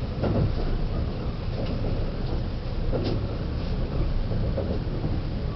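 Interior running noise of a Limited Express Azusa train in motion: a steady low rumble of wheels on the rails, with a brief click about three seconds in.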